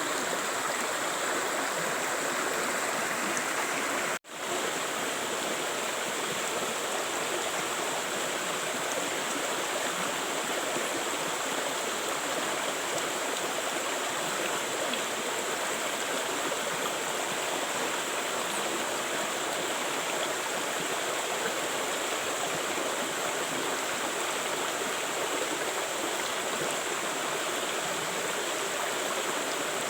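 River water flowing in a steady, even rush. The sound cuts out for a moment about four seconds in and comes straight back.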